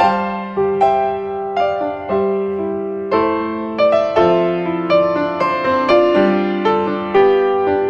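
Background music played on a piano-toned keyboard: single notes and chords struck about twice a second, each one fading away before the next.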